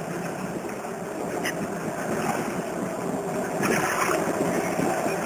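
Skateboard wheels rolling on a concrete floor: a steady rumble that grows gradually louder, with a few light clicks along the way.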